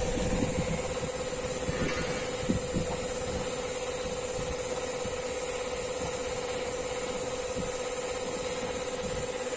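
Old air compressor running steadily with a constant hum, blowing air down a hose into a well to clean it out. A couple of light knocks about two and a half seconds in.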